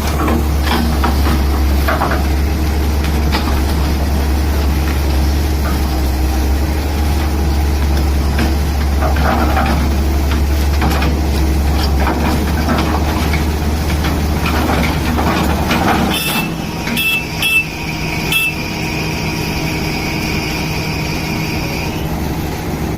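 Tata Hitachi excavator's diesel engine running with a loud, steady low rumble. About sixteen seconds in the rumble drops, a few short high beeps sound, and then a steady high whine carries on.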